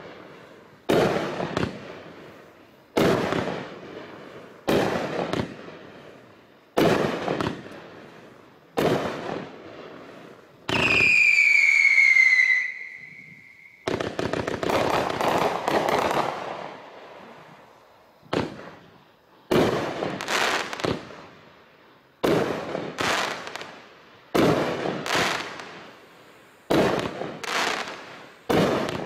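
Raccoon Fireworks 'Bang Bros' 44-shot cake firing, a sharp bang about every two seconds, each fading into crackling; the shots come faster, about one a second, near the end. About eleven seconds in, a loud whistle falls in pitch, then holds steady and cuts off near fourteen seconds.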